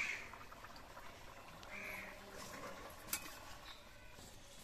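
Two short animal calls, one at the start and one about two seconds in. About three seconds in, a sharp clink of a metal spatula against the iron wok as the curry is stirred.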